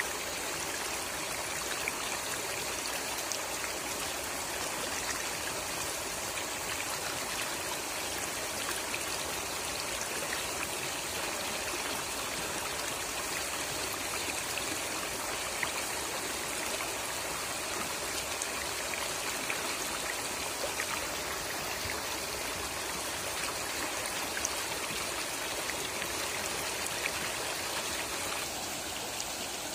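Muddy floodwater rushing fast across an overtopped road and through roadside bushes: a steady, churning rush of water.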